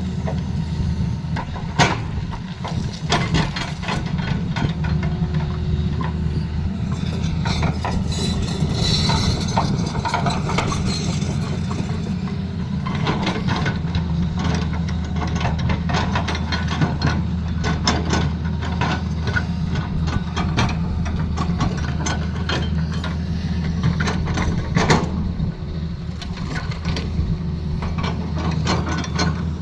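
Excavator's diesel engine running steadily, with a clatter of irregular knocks and clanks over it.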